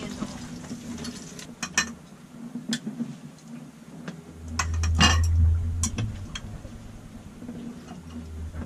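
Metal utensils clinking and scraping against a baking dish and plates as food is served, with a sharp clatter about five seconds in. Beneath it runs a steady low rumble that swells in the middle.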